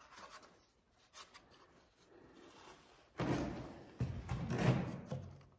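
A few faint clicks and rustles, then scraping and rubbing noises in two stretches from about three seconds in.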